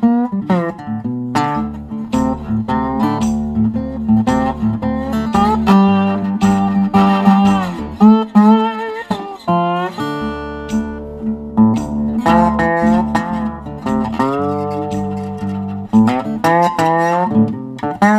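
Instrumental background music led by guitar, its melody notes bending in pitch over a steady low note and a regular bass line.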